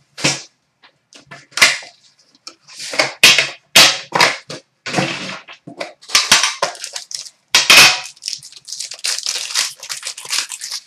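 Plastic shrink-wrap being torn off a sealed trading card box, crackling and crinkling in irregular sharp bursts with brief pauses between them.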